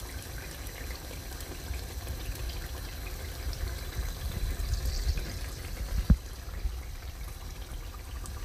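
Tomato stew simmering and bubbling in a stainless steel pan, a steady noise over a low rumble. One sharp knock comes about six seconds in.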